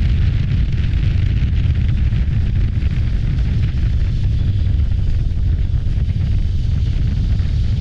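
Heavy, steady wind rumble buffeting the microphone of a Voge DS525X motorcycle at road speed, with the bike's engine running beneath it.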